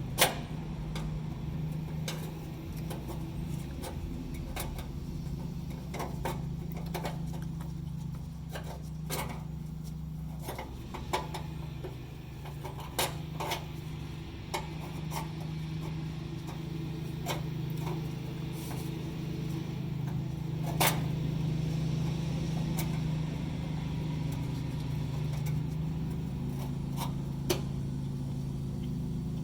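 Scattered clicks and knocks of small parts being handled while the new fuel pump is fitted onto its bracket, the sharpest right at the start and a few more spread through, over a steady low hum.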